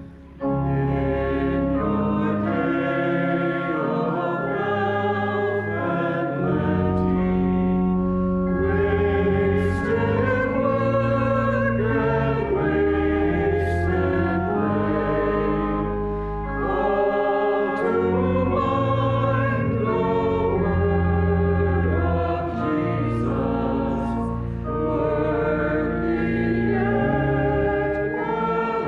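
A congregation and choir singing a hymn together in harmony with instrumental accompaniment, in long held notes, with a brief pause between phrases right at the start.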